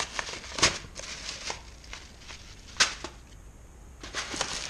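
A hand rummaging through plastic-bagged items in a cardboard box: short crinkling and rustling, with a sharp crackle about three seconds in and a busier patch of rustling near the end.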